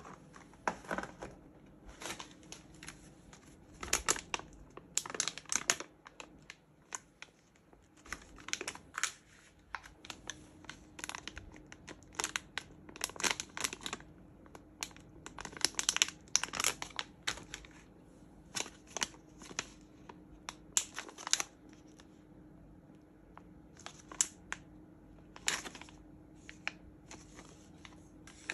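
Plastic or paper packaging crinkling and rustling as it is handled, in irregular short bursts.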